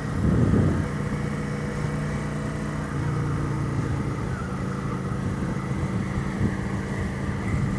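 Suzuki GW250 parallel-twin motorcycle engine running at a steady speed.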